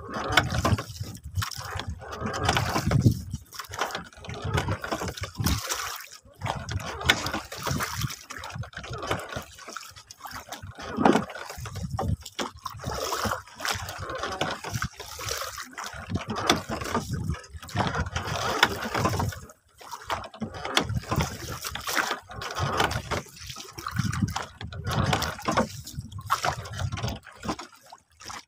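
Seawater lapping and sloshing against the hull of a small wooden fishing boat, in irregular surges that come and go every second or two.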